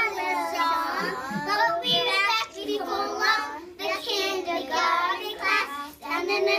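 A group of kindergarten-age children singing a song together in short phrases, with brief pauses between them.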